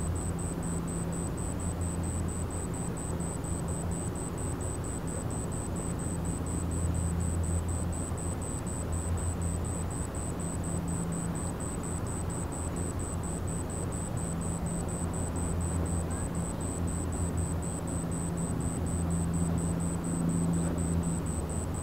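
Low, steady drone of a large car ferry's diesel engines as the ship leaves port, its hum swelling and easing slightly.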